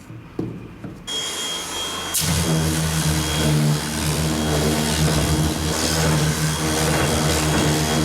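An electric power tool's motor running loudly and steadily with a hissing abrasive noise, starting abruptly about two seconds in after a lighter hiss with a thin high whine, and cutting off suddenly at the end.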